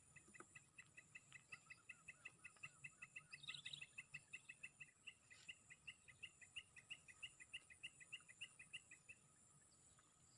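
A bird calling faintly in a long, fast series of short, evenly repeated notes, about five a second, that stops about nine seconds in, over a steady high-pitched insect drone.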